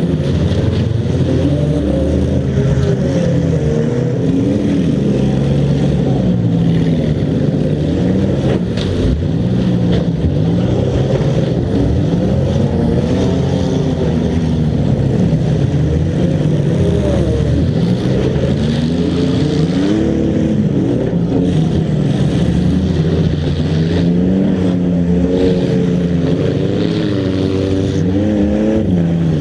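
Several demolition derby car engines revving up and down at once, their pitches rising and falling against each other, with a few sharp knocks mixed in.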